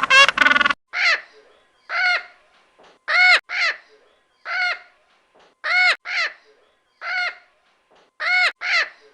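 A bird calling over and over, in single and paired calls about a second apart, each call rising and then falling in pitch. A different, louder animal cry cuts off just after the start.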